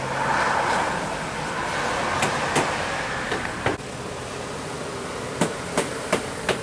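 Road traffic noise with a few sharp clacks, then near the end a regular run of sharp clacks about three a second, like wheels rolling over a joint.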